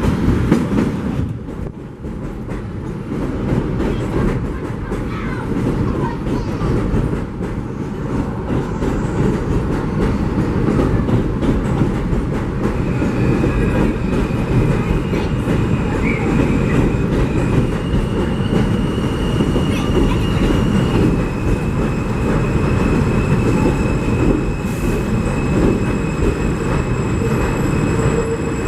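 New York City subway train running on elevated track: a steady loud rumble of wheels on rail with clicking over the rail joints. From about halfway through, high steady squealing tones join in and shift pitch a few times.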